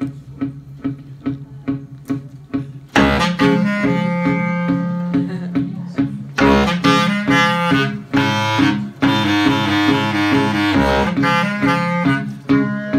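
Live instrumental song intro: electric guitar and mandolin pick a steady rhythm, and about three seconds in a bass clarinet comes in playing the melody over them.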